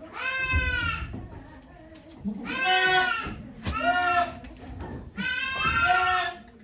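Goat bleating: four long, wavering calls, the second and fourth the loudest.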